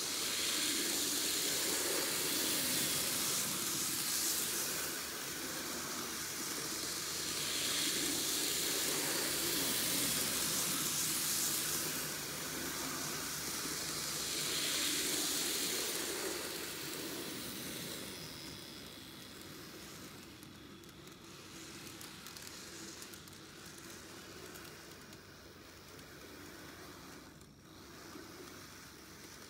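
N-gauge model train running on sectional track: a steady motor whirr and rolling hiss that swells and fades in cycles of about six seconds as it laps the oval, then settles quieter after about 18 seconds.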